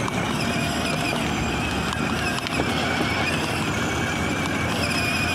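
Children's battery-powered ride-on toy jeep driving over asphalt: its plastic wheels roll with a steady rumbling noise while the small electric motor runs.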